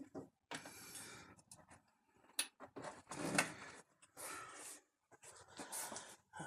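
Gloved hands pressing and working a plastic windshield cowl panel on a 2022 Ford Maverick: irregular rubbing and scraping of plastic, with a sharp click about two and a half seconds in.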